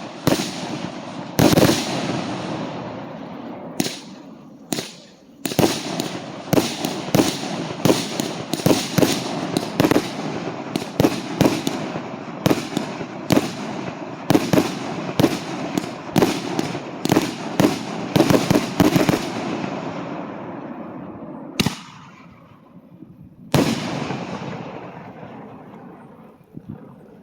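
Fireworks salutes going off in a rapid barrage of loud bangs, about two a second, with rolling echo between them. Then come two last separate bangs, and the echo dies away.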